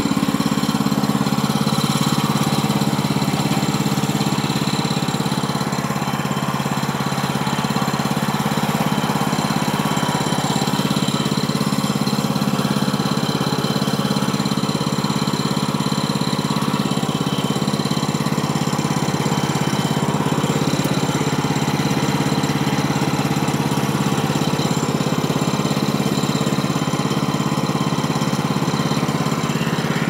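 Woodland Mills HM130MAX bandsaw mill's gas engine running steadily at an even level while the saw head travels along the log track.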